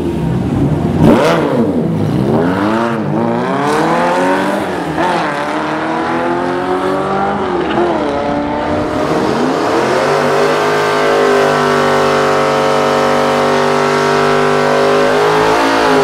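TVR Cerbera 4.5's V8 and a second car accelerating hard off the drag-strip start line: the engine note rises in pitch and drops back at each gear change, about four times. From about ten seconds in, a steady engine note holds at a constant pitch.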